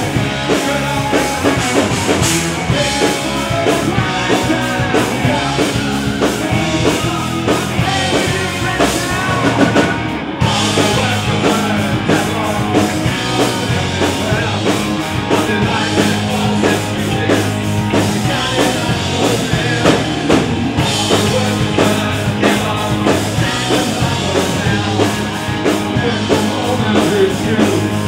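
Live rock band playing loud: electric guitar, electric bass and drum kit under a male lead vocal. There is a short break about ten seconds in, then the band comes back in heavier.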